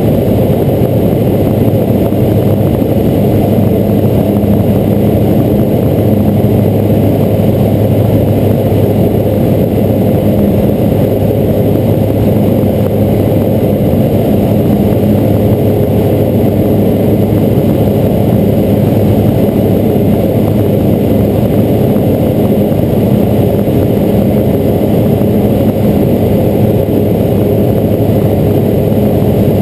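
Robin DR400 light aircraft's piston engine and propeller running steadily in flight, a loud, even drone heard from inside the cockpit.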